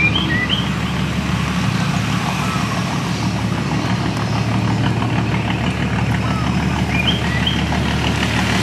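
Small boat engine running steadily, with a fast, even putter. Short high chirps come twice, near the start and about seven seconds in.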